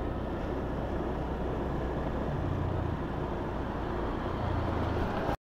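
Street traffic: a steady rumble of passing vehicles, swelling twice as vehicles go by, then cutting off suddenly near the end.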